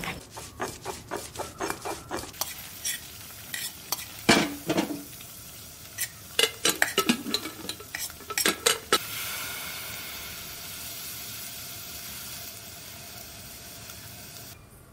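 Cooking sounds: steel utensils repeatedly clinking and scraping against steel bowls and pans while food is stirred, then from about nine seconds in a steady sizzle of food frying on a hot pan, which stops abruptly near the end.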